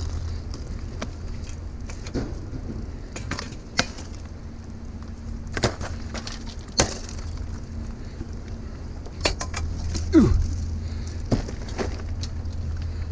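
Scrap metal being handled and knocked about: scattered sharp clinks and knocks, about a dozen, the loudest about ten seconds in together with a short falling scrape. A steady low hum runs beneath.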